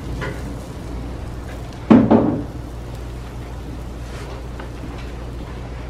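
A single short knock or clunk about two seconds in, over a low steady hum, as batter is scooped from a mixing bowl with a plastic measuring cup.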